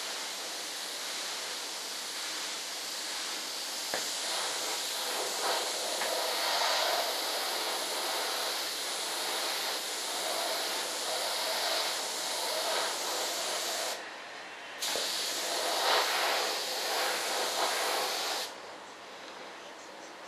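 Compressed-air paint spray gun hissing steadily as it sprays paint. The hiss cuts out briefly about fourteen seconds in, starts again, and stops near the end.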